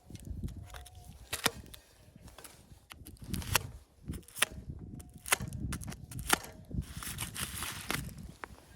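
A series of about six sharp cracks or knocks at irregular intervals, over a low rumbling noise.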